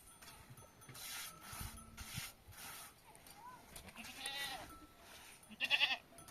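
Small livestock bleating: two wavering calls, the second louder near the end, over faint repeated rustling.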